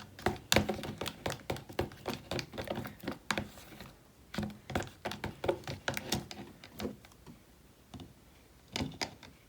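A fork stirring slime in a cup, clicking and tapping against the cup's sides in an irregular run that thins out in the second half, as the activator is worked into the glue.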